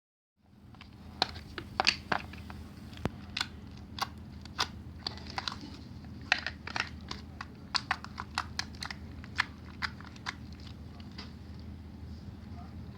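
Slime being pressed and stretched by hand, giving many irregular sharp clicks and pops that thin out near the end, over a steady low hum.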